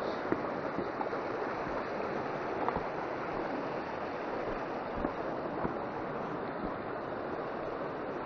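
Fast-flowing mountain stream rushing over rocks, a steady noise, with a few faint knocks scattered through it.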